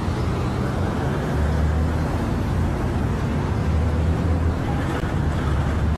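Steady road traffic noise: a continuous low rumble with an even hiss.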